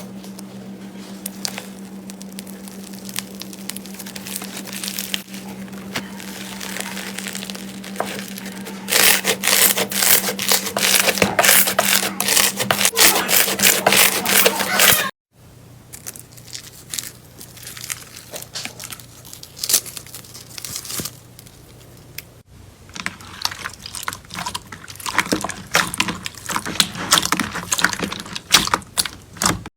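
Slime being squeezed and worked by hand, with dense runs of crackling and popping clicks and softer rubbing between them. A steady low hum sits under the first part and stops at a sudden cut about halfway through.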